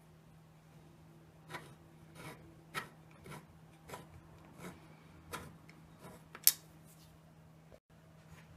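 Allen key turning a bolt into a desk chair's chrome armrest frame in short strokes: about ten short scraping clicks, roughly one every two-thirds of a second, the last one the loudest.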